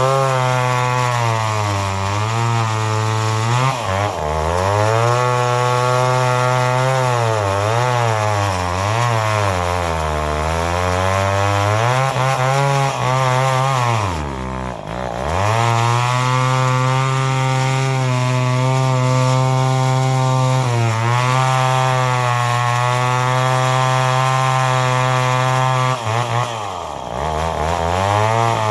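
Remington SL-11 two-stroke chainsaw, with a full skip chain, running at full throttle through frozen wood. The engine pitch sags repeatedly as the chain bites and recovers in between, with two deep bogs near the middle and near the end.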